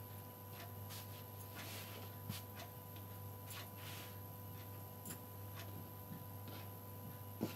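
Faint rustling of chiffon fabric as hands smooth and arrange it on a cutting table, with scattered light ticks at irregular intervals over a steady electrical hum.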